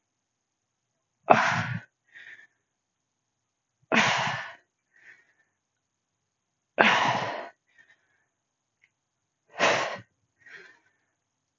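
A woman's forceful breaths out through the mouth, one for each heavy kettlebell deadlift rep: four of them about three seconds apart, each starting suddenly and followed by a shorter, quieter breath in.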